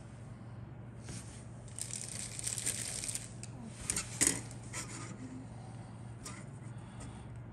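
Grey plastic model-kit sprues being handled: about two seconds in there is rustling and crinkling, then a few sharp plastic clicks and taps as the sprues are picked up and laid on the cutting mat, the loudest just past the middle.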